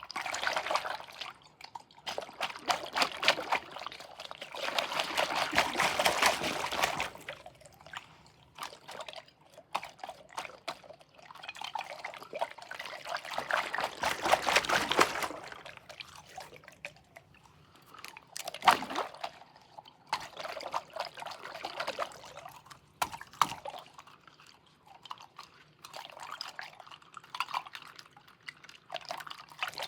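A water-filled squishy giraffe making wet, squishy squelching sounds in irregular bursts of crackles lasting a few seconds each, with pauses between. A single sharper pop comes a little past the middle.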